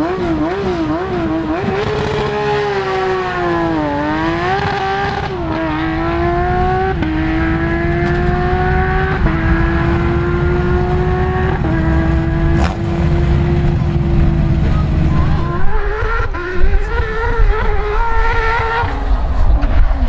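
Porsche 997 GT3 rally car's flat-six held at wavering high revs on the start line, then launching and accelerating hard, its pitch climbing and dropping back through four upshifts about two seconds apart. Near the end, another Porsche 911 rally car's engine rises and falls unevenly as it approaches.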